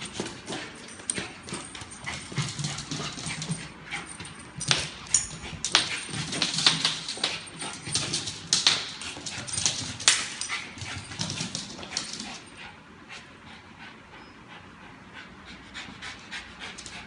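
Small dog playing with a ball on a hard floor: a busy run of claw clicks and ball knocks, thickest in the middle and thinning out after about twelve seconds, with short low whining sounds from the dog a few times.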